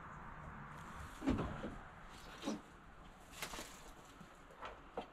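Four or five scattered knocks and thuds, the loudest about a second in, from someone handling wire and moving about at a barn wall.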